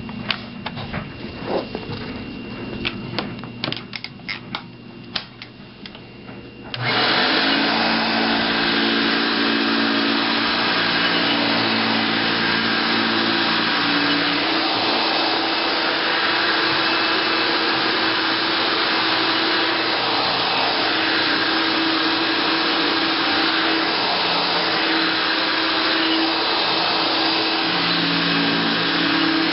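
A few clicks and knocks, then about seven seconds in a 1971 Hoover Dial-a-Matic vacuum cleaner (model 1136) switches on abruptly and runs steadily at full speed.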